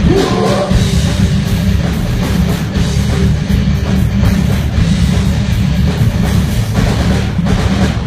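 Live heavy rock band playing an instrumental passage: distorted electric guitars, bass and a pounding drum kit, loud and steady through the PA, with no vocals yet.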